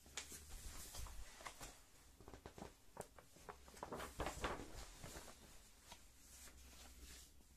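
Rustling and light clicks of a large paper picture book being handled and its page turned, with a faint low hum under it.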